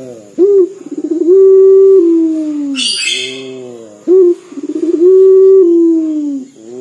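Indonesian local puter (Barbary dove) cooing twice: each coo is a short note, a quavering roll, then a long drawn-out note that falls in pitch, the mournful style likened to crying. A brief hiss comes between the two coos.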